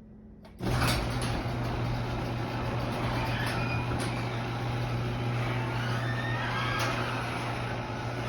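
Electric garage door opener starting up about half a second in and running steadily, with a low motor hum and the door rattling along its track, with a few clicks and faint squeaks from the unlubricated rollers and hinges.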